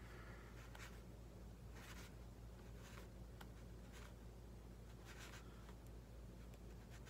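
Faint, scattered scratching and rubbing of fingertips working on a foam RC model airplane wing, over a steady low hum.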